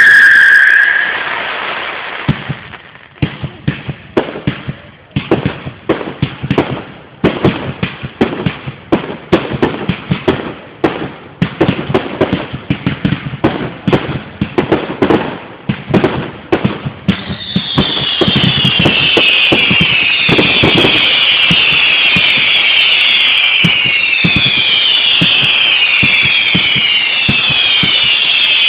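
Fireworks going off. A falling whistle fades out in the first second, then comes a rapid run of sharp bangs and crackles. From about two-thirds of the way through, one falling whistle follows another, about one a second, overlapping in a steady screech.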